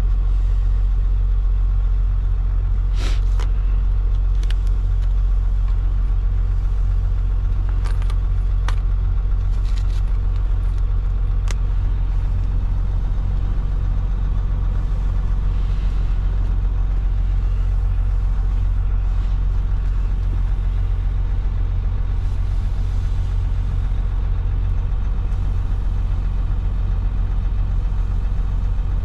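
Semi truck's diesel engine idling steadily, a constant low hum, with a few sharp clicks in the first dozen seconds.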